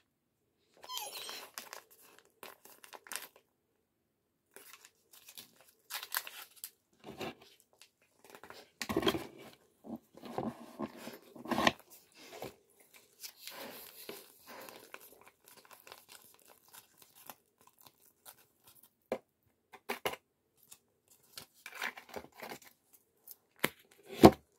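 Wet dog food pouch being torn open and handled: irregular crinkling, rustling and tearing as its contents are squeezed out into a bowl, with a sharp knock near the end.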